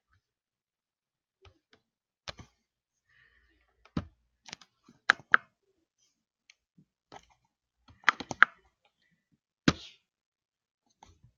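Computer mouse clicking: scattered sharp clicks with pauses between, including a quick pair about five seconds in and a tight cluster of clicks around eight seconds in.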